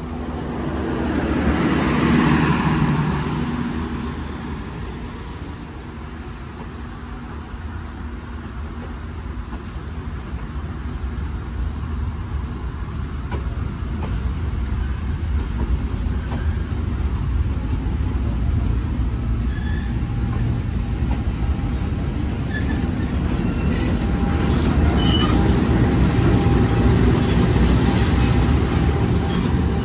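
Passenger coaches rolling slowly past on the rails during shunting, wheels rumbling with a few sharp clicks. The sound grows louder as the train's CC 201 diesel-electric locomotive draws near, and is loudest in the last few seconds.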